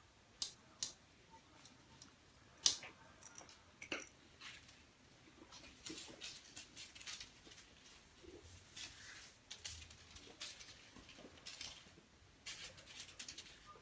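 Kittens running and playing: faint pattering and scrabbling of small paws with scattered light taps and knocks, the sharpest about two and a half seconds in.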